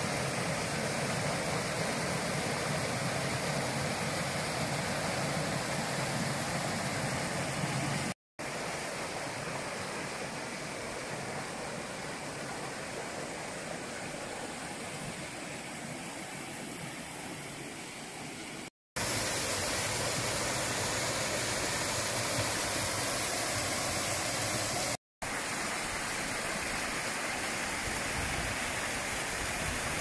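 Mountain stream rushing and splashing over small cascades between mossy rocks: a steady rush of water, cut off for an instant three times where the recording is edited.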